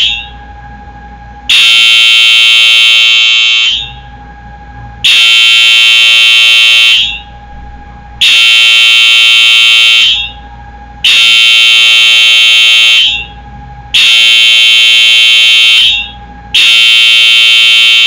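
Wheelock EHS-DL1 fire alarm horn sounding its slow march time code: loud buzzing horn blasts about two seconds long, one roughly every three seconds. A fainter steady tone carries on between the blasts.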